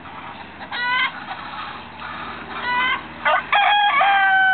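Flock of chickens clucking, with short squawking calls about a second in and again near the middle, then a rooster crowing near the end in one long call that falls slightly in pitch.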